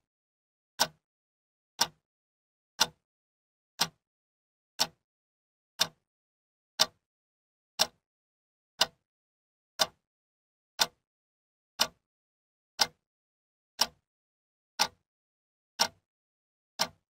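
Quartz wall clock ticking: one sharp click each second, evenly spaced.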